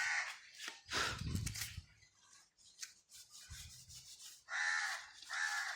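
Crows cawing: about four harsh caws, the last two close together near the end, with quieter rubbing and scraping between them.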